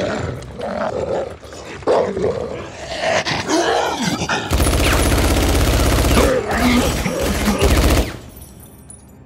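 A monstrous creature snarling and roaring, then from about four and a half seconds in a burst of rapid automatic gunfire, a short break, and a second burst that cuts off sharply near the end.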